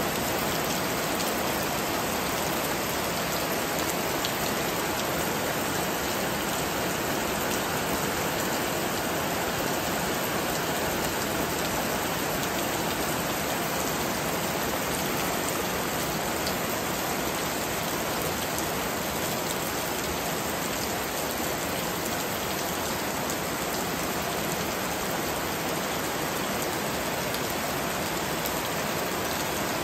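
Heavy rain falling steadily on banana plants and grass: a dense, even hiss that does not let up.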